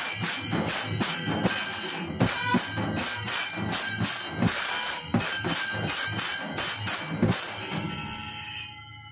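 Temple percussion ensemble: stick-beaten drums and clashing hand cymbals playing a steady, fast rhythm of about three strokes a second. The drumming stops near the end, leaving the cymbals ringing.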